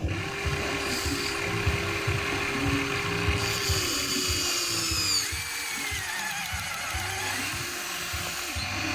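Huina 1594 RC toy excavator's electric motors and gearboxes whining as the boom and arm lower the bucket into the mud. The whine slides up and down in pitch and starts and stops as each movement begins and ends.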